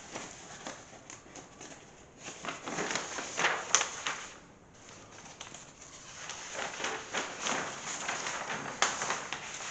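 Large paper plan sheets rustling as they are handled, unfolded and spread out, quieter for a moment about halfway through.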